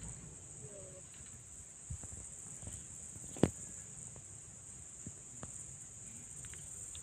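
Steady high-pitched trilling of insects in the grassland, with a single sharp click about three and a half seconds in.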